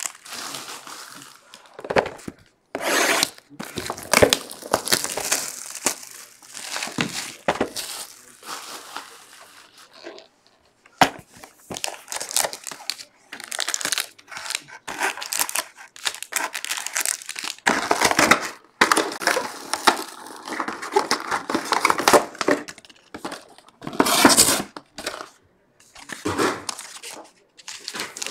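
Trading-card pack wrappers being torn open and crinkled as packs and cards are handled: irregular rips and rustles with short pauses.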